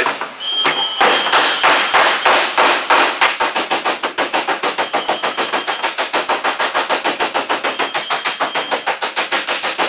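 Body hammer striking a welded spot on a 16-gauge steel quarter panel against a dolly held behind it, several quick blows a second with a bright metallic ring. This is hammer-and-dolly work flattening a weld that pulled the sheet metal outward.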